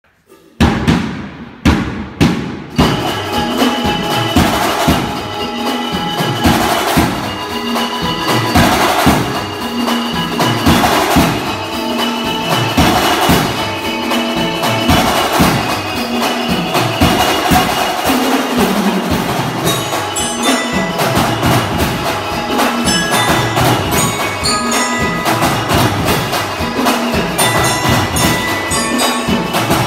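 Music with a steady percussive beat, opening with a few sharp taps in the first couple of seconds.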